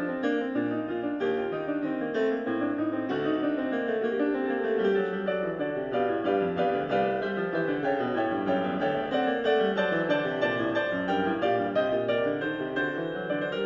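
Piano music played back through a Western Electric TA8002 loudspeaker system, with quick runs of notes that climb and fall.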